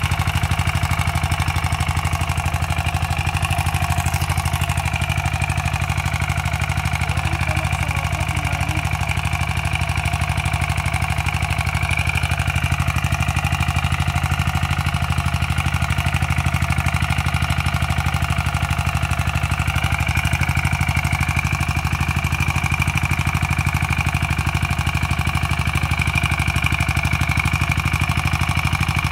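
Rotary tiller's engine running steadily while its blades work plant residue into the soil.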